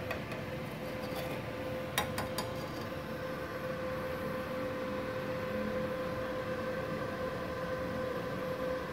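Steady hum with one constant tone from a powered-on but idle MultiPro MMA 120 G-KRK IGBT inverter stick welder, its cooling fan running. A couple of light clicks come about two seconds in.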